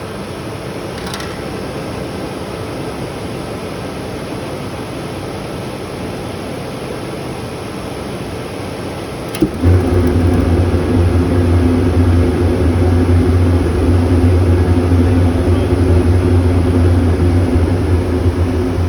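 Dometic furnace running with a steady rushing fan noise; about nine and a half seconds in there is a click, and a much louder, low steady hum starts and keeps going.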